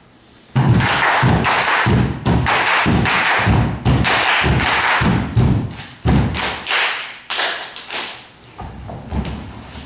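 Group body percussion by barefoot dancers in unison: hand claps together with low thumps, about three beats a second, thinning out and fading over the last couple of seconds.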